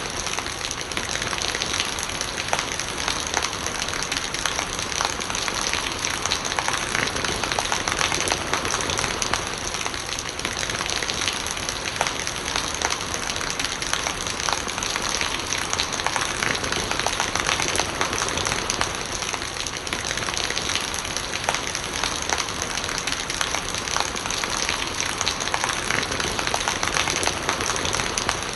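Steady rain: a dense patter of countless small drop strikes over an even hiss, without a break.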